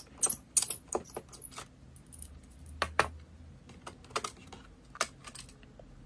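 Small sharp clicks and taps of plastic and metal laptop parts being handled as an iBook G4's memory compartment is opened. A quick flurry comes in the first second and a half, then a few single clicks spaced about a second apart.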